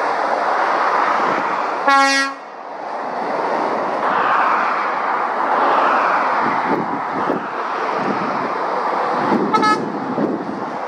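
Heavy road traffic passing steadily, with lorry engine and tyre noise. A short, loud horn toot about two seconds in, and a fainter, higher-pitched horn toot near the end.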